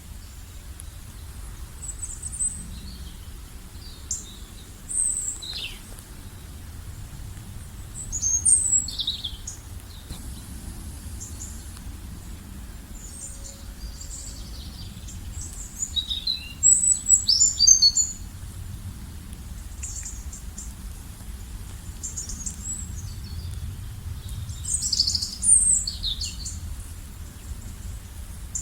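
Wild birds singing and chirping in short high phrases, with livelier bursts of song about a third of the way in, past the middle and near the end, over a steady low rumble.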